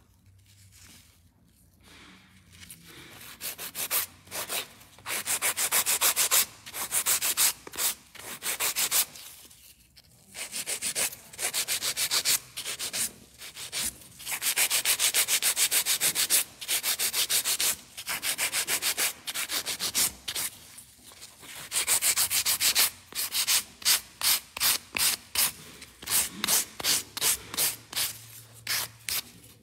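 Hand nail file rasping back and forth over acrylic powder nails, shaping long stiletto tips. It starts after a quiet couple of seconds and goes in runs of quick, even strokes with short pauses, ending in separate strokes at a few a second.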